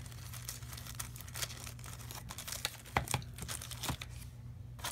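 Clear plastic packaging crinkling as hands handle and unwrap a scraper inside it, a run of small crackles with a few sharper ones about three and four seconds in.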